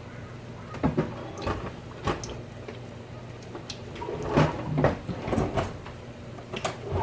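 Cookware and utensils being handled in a kitchen: a string of light knocks and clicks, busiest in the second half, over a steady low hum.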